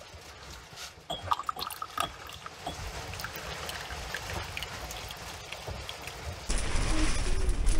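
Tea poured in a thin stream from a glass teapot into a glass cup, a soft trickling, with a few light glass clinks about a second in. Near the end a much louder, steady rushing noise takes over abruptly.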